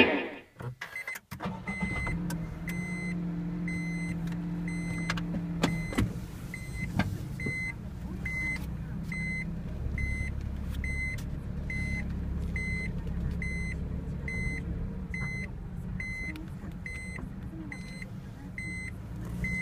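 A car's indicator ticker clicking at an even rate, about two short electronic ticks a second, over a low steady hum inside the parked car's cabin.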